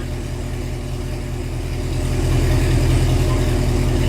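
Corvette V8 idling with a steady low hum, getting a little louder about two seconds in.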